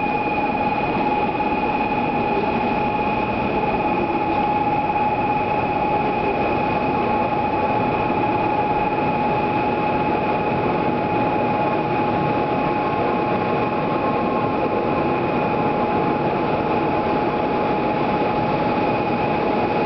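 N700 Series Shinkansen train pulling into the platform and sliding past at low speed: a steady rolling rumble of the cars, with a steady high whine at two unchanging pitches throughout.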